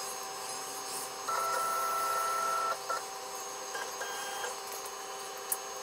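CNC router's stepper motors whining as the gantry is jogged from a handheld pendant to line the spindle's pointed tool up over a centre mark. A steady high whine starts about a second in and lasts about a second and a half, followed by a few short blips of movement over a constant low hum.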